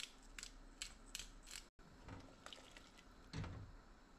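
Pepper mill being twisted over the pot: a run of dry ratcheting clicks, about two or three a second, breaking off suddenly; a soft thump follows near the end.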